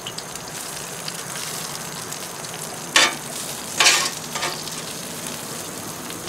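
Grilled cabbage and bacon sizzling steadily on a hot Blackstone flat-top griddle, its burners shut off, as metal tongs move the food, with two short, louder scrapes of the tongs about three and four seconds in.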